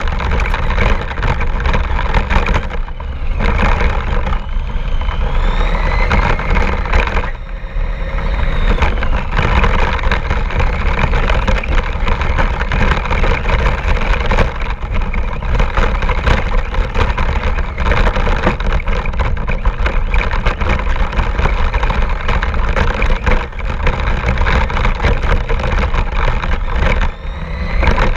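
Radio-controlled car driving, heard from a GoPro mounted on it: a steady rumble of tyres and drivetrain over the ground. The motor's whine rises in pitch a few seconds in and again near the end as the car speeds up.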